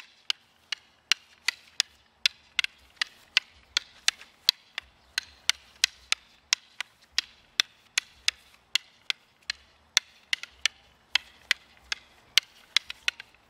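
Two training sticks clacking together over and over in a partner stick-fighting drill, in a steady rhythm of about three sharp strikes a second.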